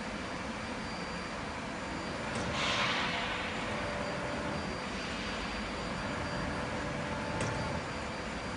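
Steady drone of machinery in a large factory hall, with a hissing rush that swells about two and a half seconds in and then fades, and one short sharp click near the end.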